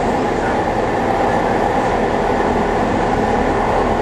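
Finnish Dm7 diesel railcar running along the track, heard from inside the driver's cab: a steady, loud drone of the engine and wheels on the rails.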